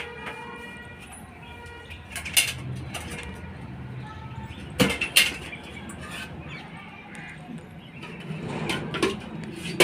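Dry twigs snapping a few times with sharp cracks as fuel is broken for a clay chulha. Near the end, oil is poured from a steel pot into the hot kadhai with a rising hiss.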